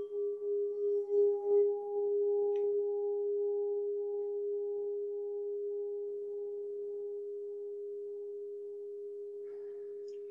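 Singing bowl ringing out as a call to silent meditation: one long, steady tone that slowly fades, with a fainter higher overtone wavering in a slow pulse.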